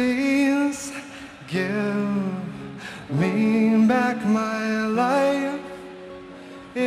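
A man singing live into a microphone in a series of drawn-out phrases, over a softly ringing acoustic guitar.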